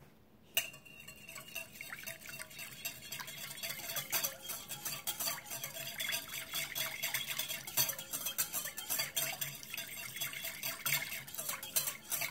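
Wire balloon whisk beating a thin liquid in a glass mixing bowl: a fast, continuous clicking of the wires against the glass with light sloshing, starting about half a second in.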